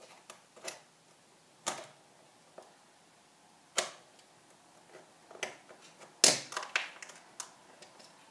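Sharp clicks and plastic snaps as metal staples are pried out of a clear plastic container's rim with a staple remover, about seven of them spread irregularly, the loudest about six seconds in.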